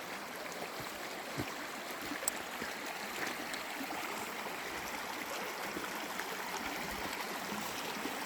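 Rainwater running in a stream across a washed-out road: a steady rushing of flowing water, with a couple of faint ticks in the first few seconds.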